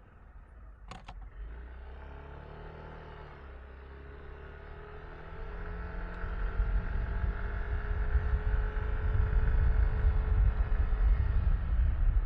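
Yamaha Tricity 155 scooter's single-cylinder engine pulling away, its note climbing slightly and getting louder from about five seconds in, with a low wind rumble on the microphone building as speed picks up. A sharp double click about a second in.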